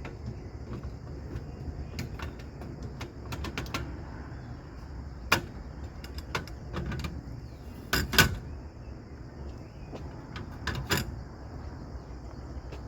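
Scattered clicks and knocks of cooking gear being handled as a camp stove is set up, with a few sharper knocks, the loudest a double knock a little past the middle. Insects chirp steadily behind.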